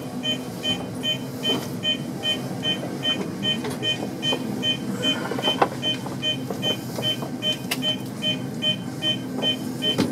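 Rapid electronic beeping, about three short beeps a second, over the steady low hum of a stopped subway train's equipment, heard in the cab, with a few scattered clicks.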